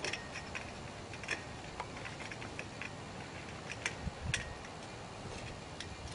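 Light, scattered metallic clicks and taps: a steel bolt with its flat washer and spacer being handled and slipped through the hole in an aluminum slide leg and its deck flange.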